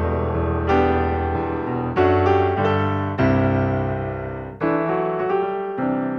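Background piano music: slow sustained chords, a new chord struck about every second.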